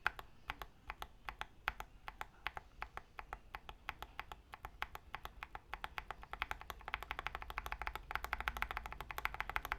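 Typing on a stock KBD75 v3.1 mechanical keyboard with Tecsee Coffee switches on an aluminium plate: separate keystrokes at first, getting faster and denser from about six seconds in.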